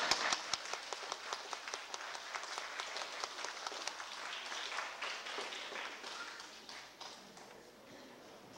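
Audience applauding, dense at first, then thinning and dying away over the last couple of seconds.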